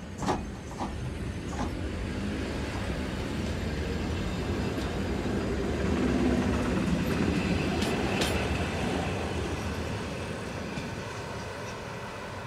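ED4M electric multiple unit pulling away past the platform, its wheels rolling and clicking on the rails. The sound swells as the cars go by and fades as the train moves off, with a few sharp clicks near the start and another about eight seconds in.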